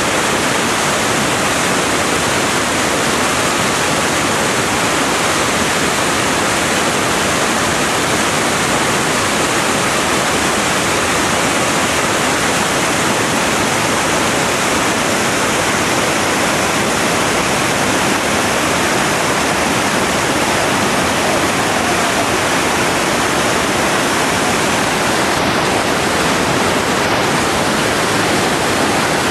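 Whitewater rapids rushing over rocks at a waterfall, a loud, steady rush of water close to the microphone.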